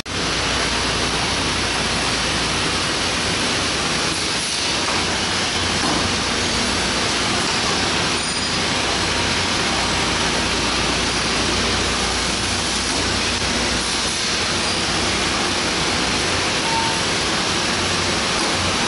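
Steady industrial background roar: an even rushing noise with a low hum underneath.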